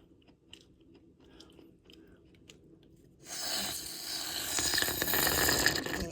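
Quiet at first, then about three seconds in, nearly three seconds of loud mouth noises from someone tasting a fresh coconut right at the microphone.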